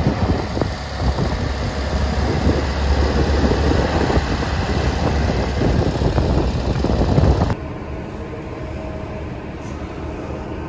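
Street noise with vehicle traffic, a steady rumble with passing sounds. About three quarters of the way through it cuts abruptly to a quieter, steady background hum.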